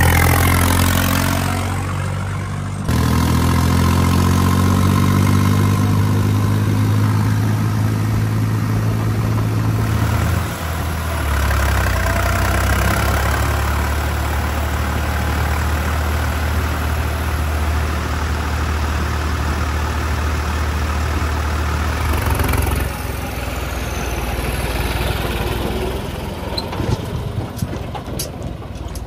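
New Holland 3630 tractor's diesel engine running steadily while driving, its sound sweeping as the tractor passes close by at the start. The engine note shifts in pitch and level a few times.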